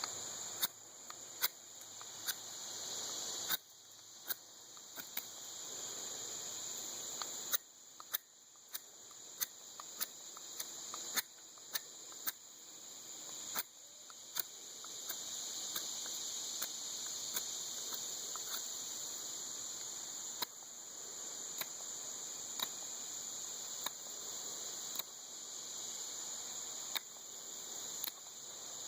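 A knife shaping the end of a dry horseweed hand-drill spindle: irregular sharp clicks and small scraping cuts, over a steady high chirring of insects.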